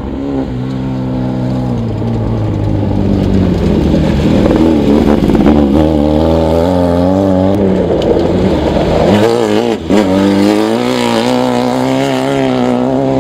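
Off-road race car engines revving hard as the cars pass close on a dirt course, the pitch rising and falling with the throttle. The engine note is loudest about five seconds in. About ten seconds in it breaks off briefly, and another engine takes over.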